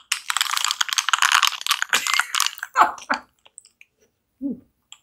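Carbonated Hot6 energy drink fizzing and crackling over ice in a glass mug, a dense crackle of tiny pops that dies away after about two and a half seconds.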